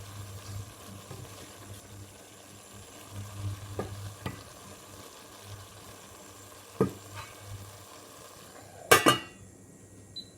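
Beef and dried chillies stir-frying in a pan: a steady sizzle with a few sharp utensil clinks against the pan. About nine seconds in come two loud knocks in quick succession, and the sizzling drops away after them.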